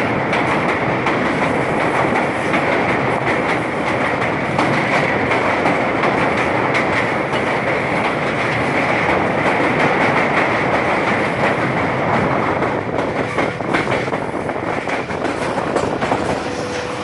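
Passenger train running at speed over a steel truss bridge, heard from an open coach doorway: a loud, steady rumble and clatter of wheels on the rails. Over the last few seconds, as the train comes off the bridge, the noise eases a little and separate wheel clacks stand out.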